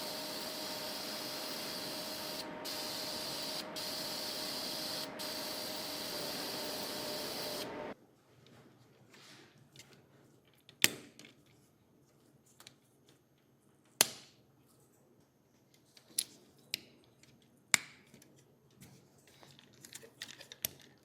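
Paint spray hissing steadily for about eight seconds, with three brief breaks, then stopping. After that come small, sharp clicks and taps of little parts being handled.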